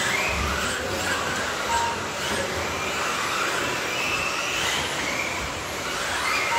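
Several electric radio-controlled buggies racing on a carpet track, their motors whining up and down in pitch as they accelerate and brake, over a steady rushing noise. A short electronic beep sounds about two seconds in.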